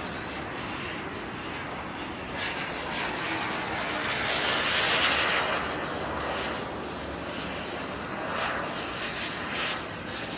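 Radio-controlled Feibao Mirage model jet flying past overhead, its engine noise a steady rush that swells to a peak about halfway through and then eases.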